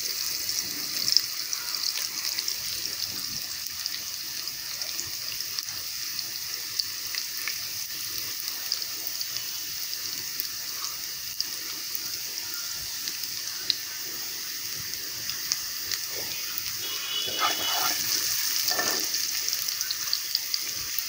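Sliced onions sizzling in hot oil in a pot as they fry toward brown: a steady frying hiss with scattered small pops and crackles.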